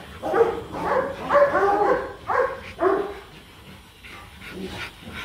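Rottweilers barking in short bursts, about four over the first three seconds, then quieter.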